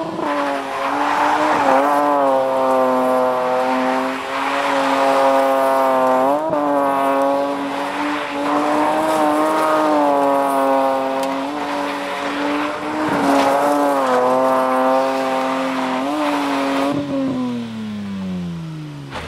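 Car engine revved up hard and held at high revs with small wavers while the car spins doughnuts with its tyres screeching. The revs fall away near the end.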